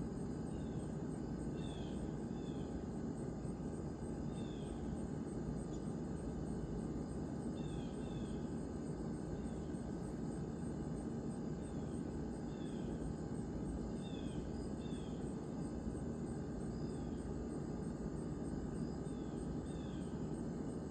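Night-time outdoor ambience: short high chirps, often in pairs, repeating every second or two over a steady low rumble.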